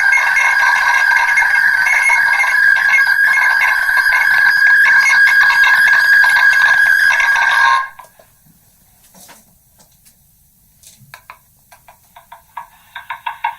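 Megaphone playback of a many-times re-recorded voice recording, worn down into a steady distorted drone of a few held tones with hiss. It cuts off suddenly about eight seconds in, a few clicks follow, and near the end a new rapidly pulsing, buzzing playback starts up.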